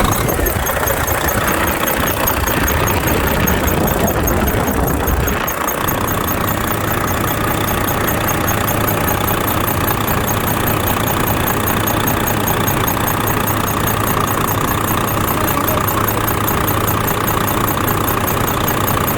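Volvo FH13 truck's diesel engine running just after start-up, heavier for the first five seconds or so, then settling to a steady idle. Over it comes a rhythmic squeak, which the mechanics place under the valve cover after a rocker-arm replacement; to the ear it seems to come from the front of the engine.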